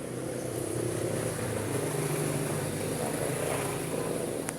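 A steady engine drone that swells and then eases off over a few seconds, with one sharp click near the end.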